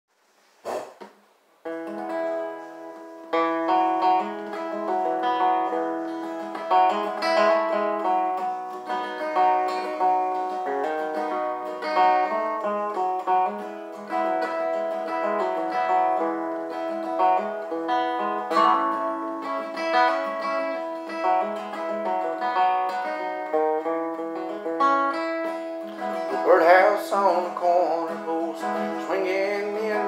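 Acoustic guitar with a capo playing a song's instrumental intro, a steady run of notes and chords. A man's singing voice comes in near the end.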